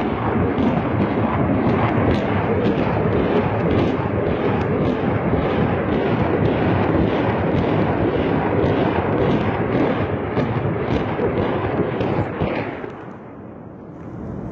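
Rocket fire: a dense, continuous rumble of launches and blasts with sharp cracks about twice a second, dying down about 13 seconds in.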